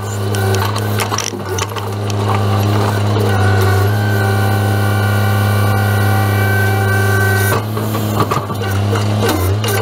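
Grapple truck's engine and hydraulics running with a steady hum as the grapple drops brush onto the load, with cracking and snapping of branches near the start and again near the end as the boom swings down to stow.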